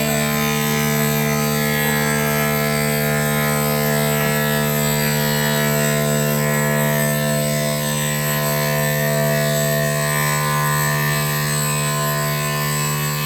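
CNC machine running steadily: a constant machine drone made of many fixed tones, with no change in pitch or loudness.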